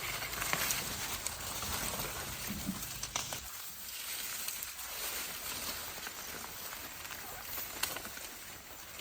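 Steady rustling with scattered light clicks and snaps; a low hum underneath stops about three and a half seconds in.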